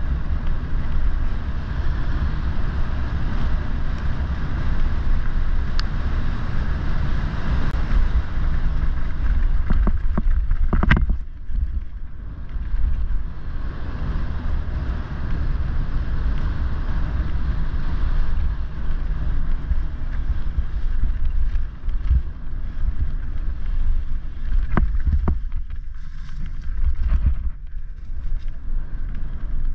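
Wind buffeting the microphone of a bike-mounted camera over the rolling and rattling of a mountain bike's tyres on a dirt and leaf-covered trail, a continuous rumbling noise. A few sharp knocks come about ten to eleven seconds in and again around twenty-five seconds, as the bike jolts over bumps.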